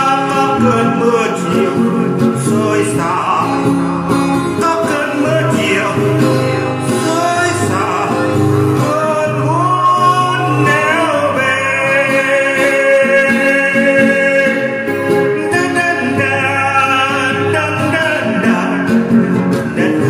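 Music: a male voice singing with guitar accompaniment.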